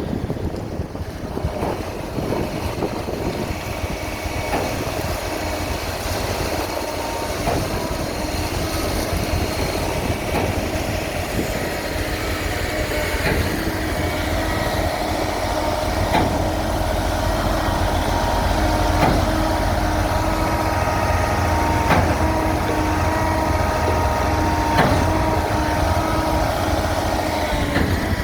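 Heavy machinery engine running steadily under a low rumble, with a whining tone over it and sharp knocks about every three seconds in the second half.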